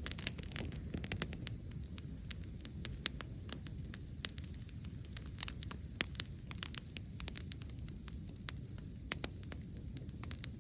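Wood bonfire crackling: irregular sharp pops and snaps, several a second, over a steady low rumble.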